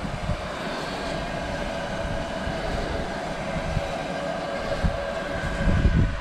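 Steam locomotive standing in steam, giving a steady humming drone over a soft hiss, with wind buffeting the microphone in low gusts, strongest near the end.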